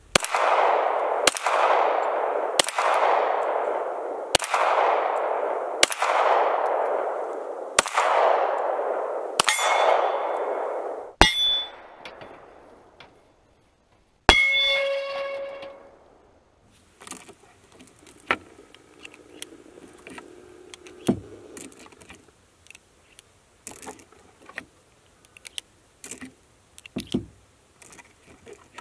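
Glock 22 .40-calibre pistol fired eight times, roughly one shot every second and a half, each crack followed by a long fading ring; the later hits set the AR500 steel gong target ringing. One more shot about 14 seconds in rings the steel plate with a clear bell-like tone. From about 17 seconds, light metallic clicks of a stainless revolver being handled and loaded.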